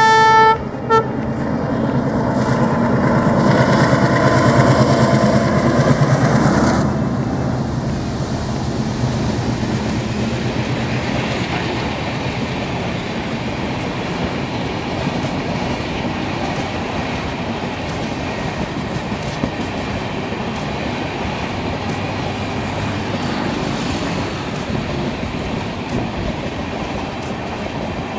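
ALCO diesel locomotive sounds its horn, a blast followed by a short second toot, then its engine rumbles loudly as it comes past. About seven seconds in this gives way to the steady rush and clatter of LHB coaches rolling by.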